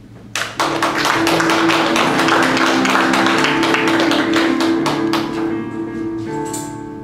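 Audience applauding. The clapping starts suddenly just after the start and dies away near the end, over an electronic keyboard holding sustained chords.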